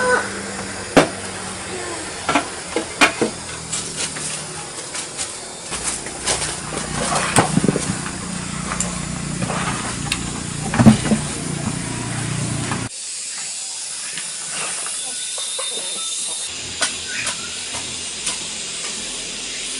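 Hand tools working loose dirt: a hoe scraping and chopping into the soil and earth tipped out of a bucket, with scattered sharp knocks of the blade over a steady hiss. About two-thirds of the way through, the low background drops away suddenly and the scraping goes on more faintly.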